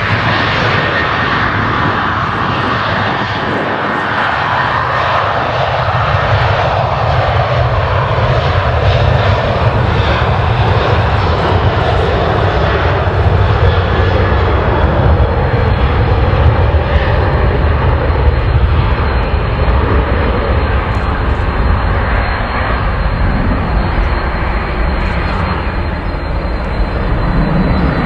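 Boeing 737-800's twin CFM56-7B turbofan engines running loud and steady as the airliner rolls along the runway. A thin high whine sits over the jet noise.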